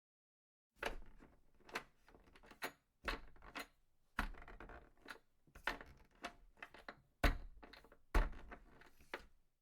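A series of about a dozen irregular knocks and clatters, each sharp at the start and dying away quickly.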